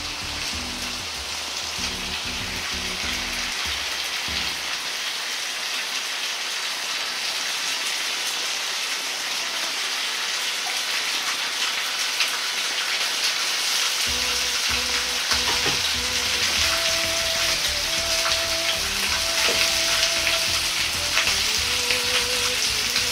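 Flour-dusted pork loin slices sizzling in oil in a wok over low heat. The crackle grows slightly louder as more slices are laid in.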